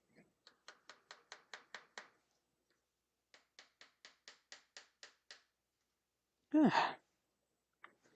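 Claw hammer tapping a small tack nail through fabric into a wooden canvas stretcher: two runs of quick, light taps, about five a second. A sigh with a falling pitch follows about six and a half seconds in, the loudest sound here, as a tack goes in crooked.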